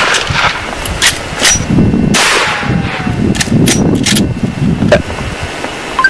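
A Winchester 94 Trapper lever-action rifle in .44 Remington Magnum fires one loud shot about two seconds in, just after the fading end of the previous shot. Several short, sharp metallic clicks come before and after it, from the lever action being worked.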